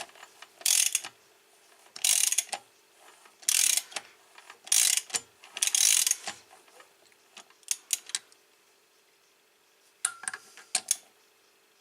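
A ratchet wrench turning a Hanway Fighter 125cc four-stroke engine over by hand, to check that the valve timing stays in time through a full rotation. There are five rasping ratchet strokes about a second and a half apart, followed by a few scattered clicks.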